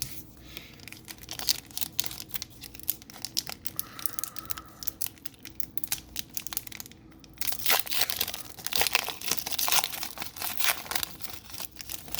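Foil wrapper of a trading card booster pack being crinkled and torn open, crackling busiest and loudest from about eight to eleven seconds in.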